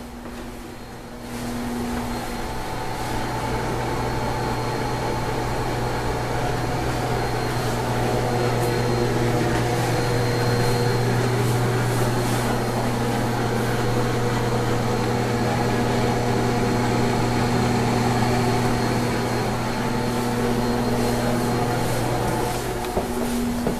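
Ventilation fan running: a steady low hum with a faint higher whine. It swells about a second in and drops away near the end.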